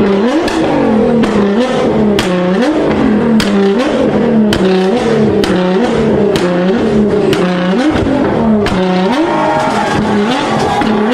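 Car engine revved again and again against a 2-step launch limiter: each rev rises quickly, then holds at one fixed pitch, about once a second. Sharp exhaust pops and bangs crack out throughout.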